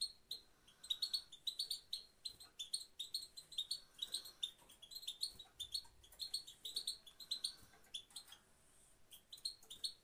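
Goldfinch giving fast runs of short, high chirps, broken by a brief lull near the end: the female's 'pit-pit' calls that keepers play to motivate a male goldfinch into song.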